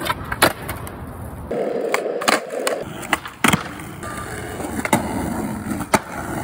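Skateboard wheels rolling on concrete and asphalt, broken by several sharp clacks of tails popping and boards landing during kickflip attempts. The rolling sound changes abruptly a few times as one short clip cuts to the next.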